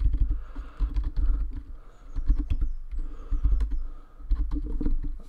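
Computer keyboard being typed on: irregular runs of key clicks with short pauses between them.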